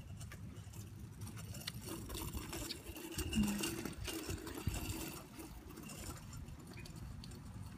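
A child's bicycle with training wheels rolling over asphalt, its small wheels and frame giving a steady low rattling clatter, loudest about three and a half seconds in.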